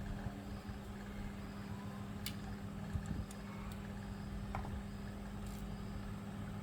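Steady low mechanical hum with a few light clicks.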